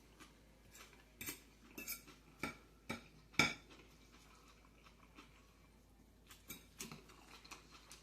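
Eating utensils clinking against a dish: a scattering of short, sharp clicks, the loudest about three and a half seconds in, with a few fainter ones near the end.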